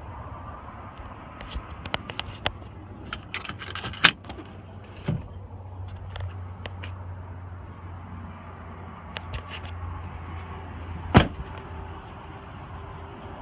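Clicks and knocks from the rear door and cab of a pickup truck being opened up and looked through. One loud, sharp thump comes about eleven seconds in, over a steady low hum.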